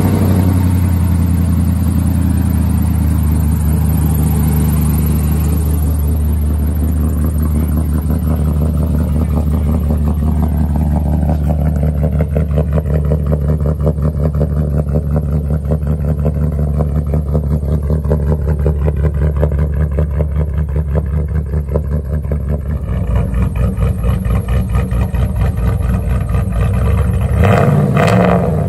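Cammed, tuned 6.0-litre V8 petrol engine of a Chevrolet Silverado 2500HD running just after a cold start, heard at the exhaust, at a steady fast idle with the lumpy, choppy beat of the aftermarket cam. About 23 seconds in the tone drops to a lower, choppier beat, and near the end a few sharper, louder pulses come through.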